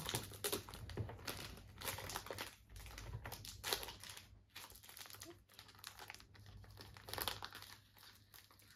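Foil wrapper of a Pokémon trading-card booster pack crinkling with irregular crackles as it is worked open by hand.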